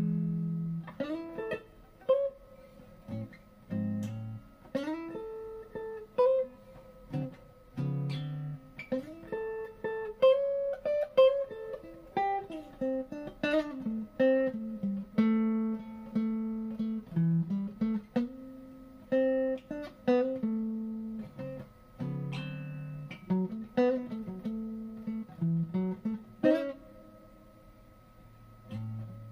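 Unaccompanied guitar playing a slow blues lead: mostly single-note phrases with pitch-bent notes, separated by short pauses.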